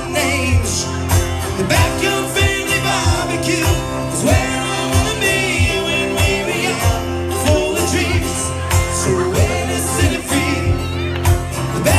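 Live country band music: a man singing into a microphone over strummed acoustic guitars and a steady beat.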